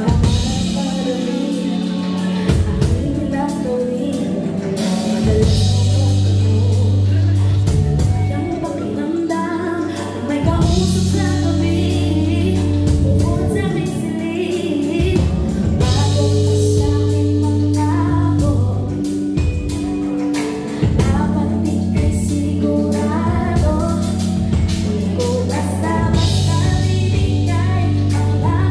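Live band playing a song: female lead vocals with a second female voice, over electric guitars, electric bass and a drum kit.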